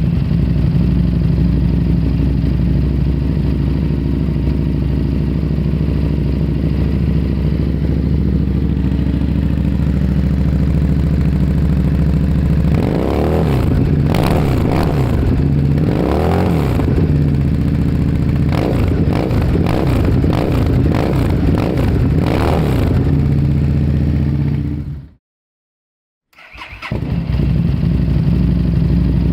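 Engine with a loud exhaust idling steadily, then revved several times about halfway through, each rev rising and falling back to idle. It shuts off near the end and, after a second of silence, is started again and settles back to idle.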